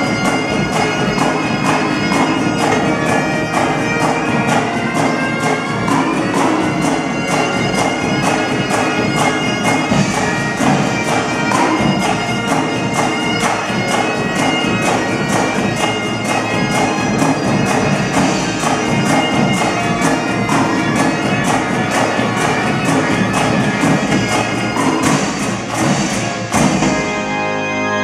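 Great Highland bagpipes playing a tune over rapid, even pipe-band snare drumming and bass drum beats, with a pipe organ sounding along. Near the end the drumming stops and only the held pipe and organ tones continue.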